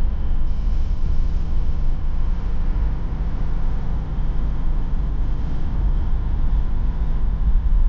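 Inside the cabin of a BMW E46 320d driving at a steady pace: the four-cylinder diesel and the tyre and road noise make an even, low rumble.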